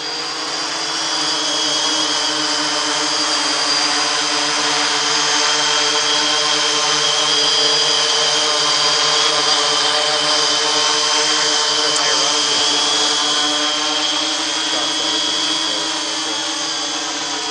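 3DR X8+ octocopter's eight counter-rotating propellers and motors running steadily in a hover. It makes a constant whine and buzz, with several fixed tones that hardly change pitch.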